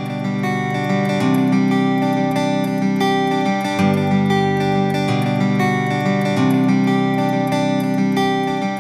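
Background music played on acoustic guitar: plucked and strummed chords, with the chord changing about every two and a half seconds.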